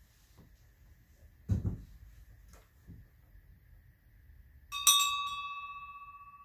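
A small metal bell struck once by hand, ringing on with one clear tone that slowly fades while its higher overtones die away quickly. A dull knock comes about a second and a half in, before the strike.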